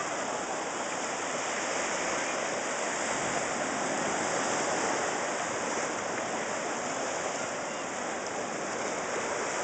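Ocean surf breaking and washing below, a steady rushing hiss with no clear rise or fall.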